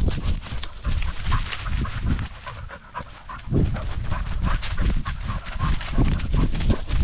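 Cocker spaniel panting right at a camera strapped to its back as it runs, its paws rustling and crunching through dry leaf litter with low bumps from the mount. It goes quieter for about a second near the middle.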